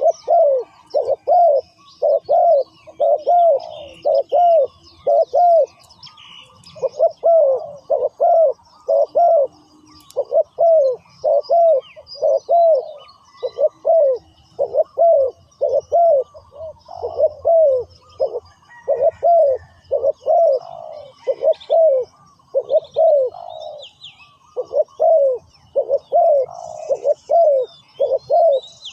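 Spotted doves cooing over and over: runs of arched coo notes, repeated phrase after phrase with short pauses between runs. Small birds chirp faintly behind them.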